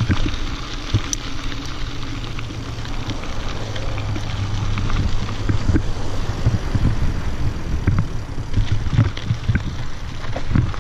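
Mountain bike tyres rolling over a gravel trail and then over the boards of a wooden footbridge, with a steady rumble and many small knocks and rattles from the bike over bumps. A steadier low hum sits under the noise around the middle, while crossing the bridge.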